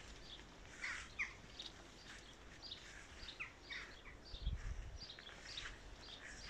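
Faint garden birdsong: many short chirps and whistled notes from small birds, some sliding in pitch. A few low thumps about four and a half seconds in.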